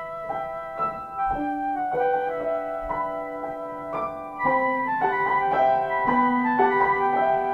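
Piano playing a slow hymn introduction: a melody over held chords, with the notes changing every half second or so.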